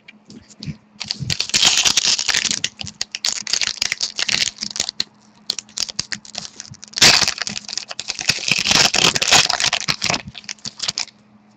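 Trading cards and their pack wrapping being handled, making a crackly, crinkling rustle in two long stretches, about a second in and again about seven seconds in.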